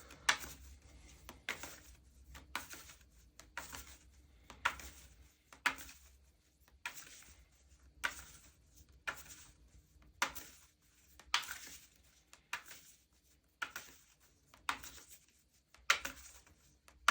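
A deck of tarot cards being shuffled by hand, one short papery stroke of cards about once a second. The cards are hard to shuffle.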